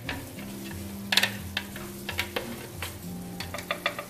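Wooden spoon scraping and tapping onion-yogurt paste out of a plastic grinder jar into a pot of simmering chicken korma. There are several sharp knocks of the spoon against the jar over a steady sizzle from the gravy.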